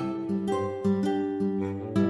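Background music of plucked string notes, about two a second.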